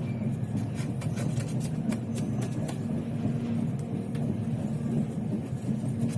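Steady low rumble of a moving passenger train heard from inside the coach, wheels running on the rails, with scattered light clicks and rattles.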